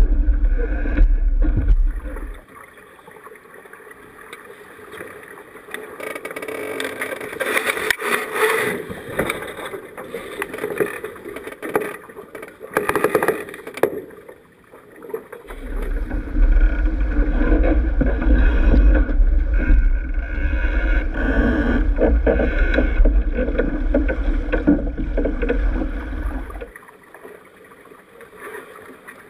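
Sailing keelboat under way: water rushing along the hull and wind rumbling on the microphone, the rumble heaviest at the start and again from about halfway until near the end. In between there are knocks and rustling from crew handling the lines and sails.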